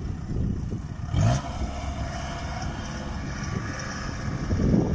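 Kubota rice combine harvesters' diesel engines running while working across soft, muddy paddy ground, with brief louder surges about a second in and near the end.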